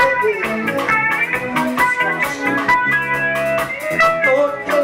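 Band music in an instrumental passage: melodic lines of held and sliding notes over a steady beat, with no singing.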